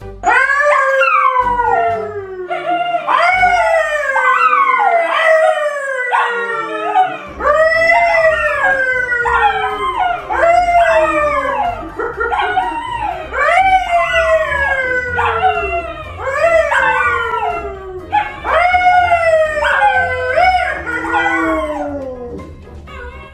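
A man and two dogs, a yellow Labrador and a brown poodle, howling together. Long overlapping wails each rise briefly and then slide down in pitch, one after another, and fade out near the end.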